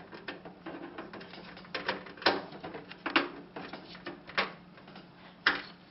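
Irregular clicks and knocks of a screwdriver and metal parts inside a computer case as the motherboard's screws are taken out, over a steady low hum.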